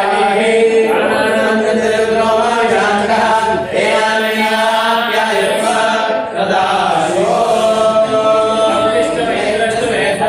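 Devotional chanting: voices chanting together in a steady, sung chant that continues throughout.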